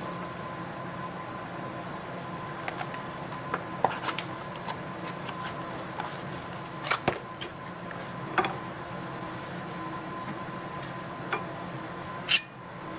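Hands handling packaging and small engine parts on a workbench: a few scattered light clicks and taps, the sharpest near the end, over a steady background hum with a faint thin tone.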